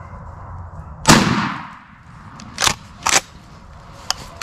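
A pump-action shotgun fires once, a sharp blast with a short echoing tail, then the slide is worked back and forward in two sharp clacks that eject the spent shell and chamber another, followed by a few light clicks.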